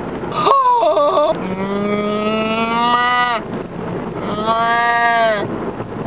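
A woman imitating a cow with her voice: a short warbling call about half a second in, then two long, drawn-out moos, each falling off in pitch at its end.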